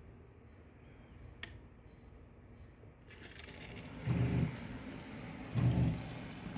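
A click, then water starting to run from an electric heated faucet at about 3 s, a steady hiss of flowing water. Two short, louder low-pitched pulses come over it near the end.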